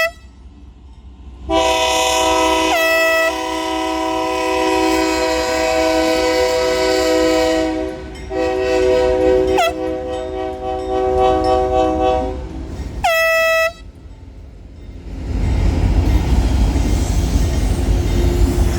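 Union Pacific freight locomotive's multi-chime air horn sounding two long blasts and then a short one, a steady chord of several tones. About fifteen seconds in, the low rumble of the passing train takes over.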